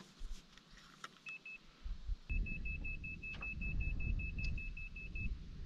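Fish finder's electronic alarm beeping at one high pitch: a double beep near the start, another about a second in, then a quick run of about five beeps a second for three seconds. A low rumble sets in about two seconds in, under the beeps.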